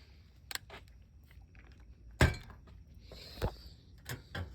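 Scattered knocks and clicks of parts being handled on a GE dishwasher door. The loudest, sharpest knock comes about two seconds in, with a second one about a second later.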